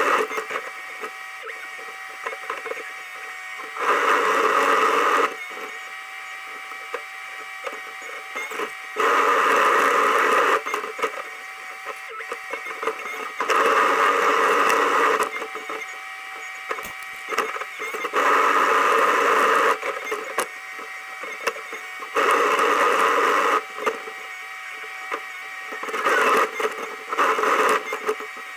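Excavator heard from inside the cab: a steady running sound, with loud surges of a second or two about every four to five seconds as the boom and bucket hydraulics are worked under load.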